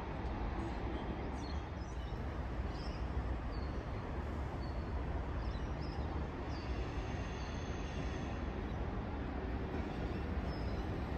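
Sydney Trains Tangara electric train approaching from a distance, a steady low rumble along the tracks. A few bird chirps come and go over it.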